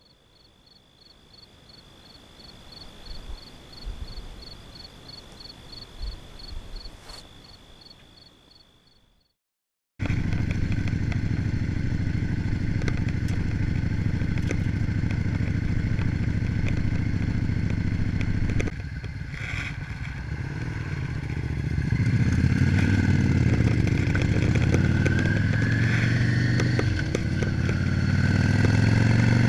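Faint hiss with a steady high tone for the first nine seconds, then, after a moment of silence, a Yamaha V Star V-twin cruiser motorcycle running at road speed, heard from an onboard camera with wind noise. The engine speeds up over the last several seconds.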